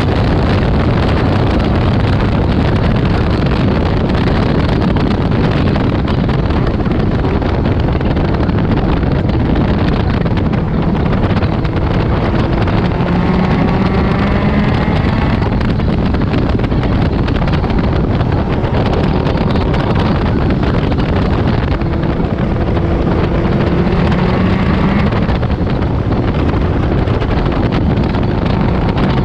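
Caterham Super Seven JPE's 2-litre VX four-cylinder engine heard from the open cockpit at speed, under heavy wind buffeting on the microphone. The revs climb in long pulls twice, around the middle and again near the end.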